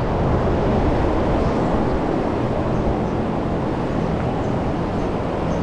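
A vehicle driving, with steady engine and road noise.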